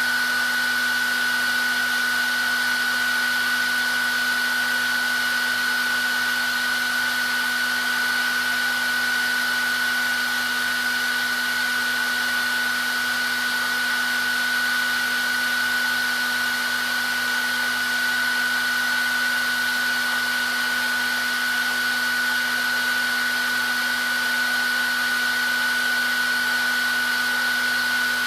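Hair dryer running continuously: a steady rush of blown air with a constant high whine from the motor and fan.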